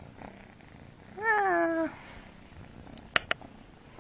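Cat purring, with one short meow about a second in whose pitch rises briefly and then settles. Two sharp clicks close together follow about three seconds in.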